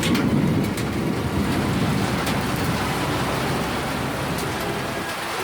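Heavy thunderstorm rain pouring down, with scattered sharp ticks of small hailstones striking. A low rumble sits under the rain in the first second or so.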